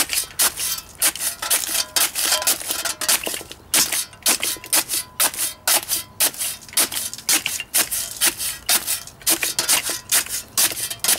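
Spade blade stabbed down again and again into a metal bucket of biochar, crunching and crushing the charcoal pieces with gritty scraping, two or three strokes a second.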